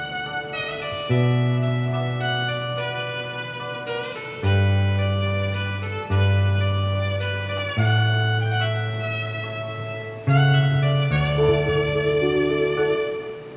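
Instrumental intro of a Taiwanese Hokkien pop song: a sustained, harmonica-like melody over plucked guitar and a bass line that moves every second or two.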